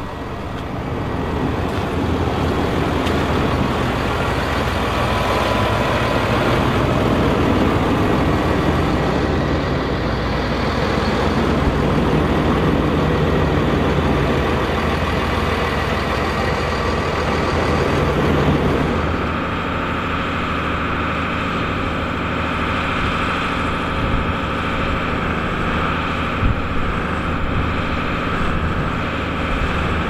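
Farm tractor engines running hard under load as they pull loaded trailers through deep mud. The sound changes abruptly about two-thirds of the way through to a different, steadier engine note.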